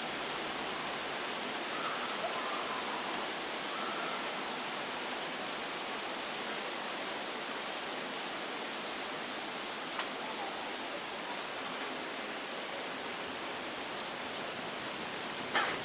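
Steady rain falling in a thunderstorm, an even hiss, with a couple of sharp ticks from nearby drops or taps, one about ten seconds in and one near the end.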